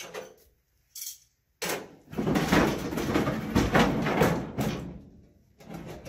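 Steel truck bumper clanking and scraping against the pickup bed and loose wood boards as it is lifted out. There is a single knock at the start, then about four seconds of dense, irregular clatter, and another clank near the end.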